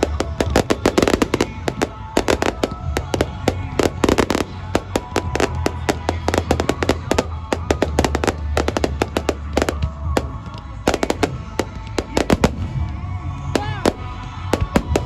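Fireworks finale: a rapid, dense barrage of bangs and crackles going off almost continuously.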